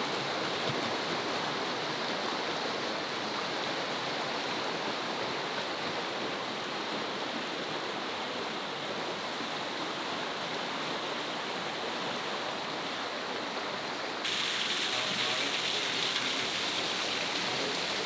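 A river rushing over rocks, a steady wash of water noise that steps up a little louder and brighter late on.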